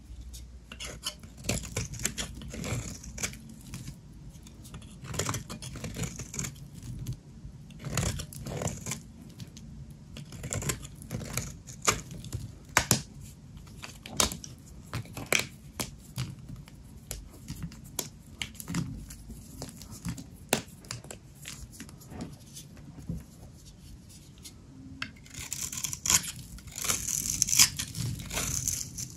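Dry soap being cut with a knife: a run of crisp, irregular snaps and scrapes as the blade goes through the bar. About 25 seconds in it turns into a denser, hissier run of crumbly scraping.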